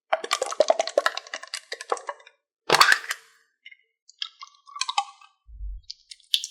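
Slime being squished and mixed by hand, crackling and popping in dense runs of sharp clicks, with one louder squelch a little under three seconds in and sparser pops after it. A brief low bump comes near the end.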